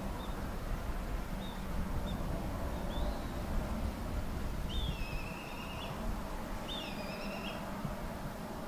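A bird calling over a steady low rumble. It gives a few short high chirps, then two longer wavering calls about five and seven seconds in.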